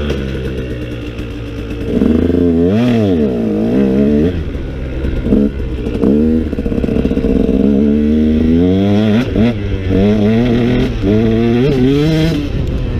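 Husqvarna dirt bike engine under hard riding: steadier for the first two seconds, then revving up and dropping back again and again as the throttle is worked over rough ground, with some clatter from the bike.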